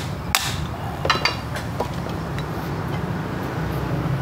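Hand hammer striking steel rear wheel bearing parts during a bearing replacement: one sharp, ringing blow about half a second in, then a few lighter metallic clinks just after a second, over a steady low hum.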